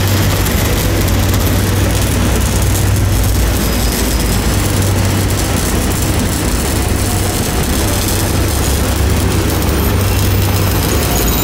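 Steady low engine drone from running site machinery over a constant wash of street traffic noise.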